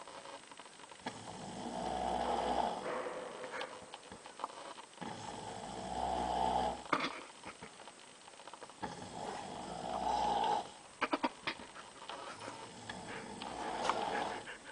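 A sleeping person snoring loudly, four long snores about four seconds apart, each building up and then breaking off. A few short sharp sounds fall between the snores.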